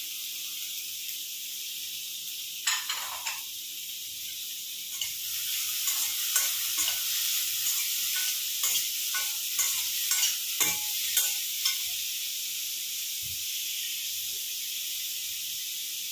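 Chopped vegetables sizzling in hot oil in a stainless steel kadai. A slotted steel spatula scrapes and clinks against the pan as they are stirred: once a little under three seconds in, then in a run of strokes from about five to twelve seconds in.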